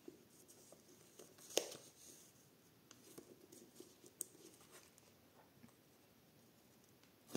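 Faint handling of loose paper journal pages, with a few small clicks and taps; one sharp tick about a second and a half in is the loudest sound.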